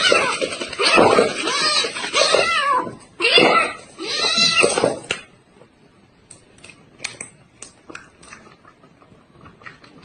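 Domestic cat meowing repeatedly, about four drawn-out rising-and-falling meows one after another, stopping about five seconds in. After that come only faint, scattered light taps.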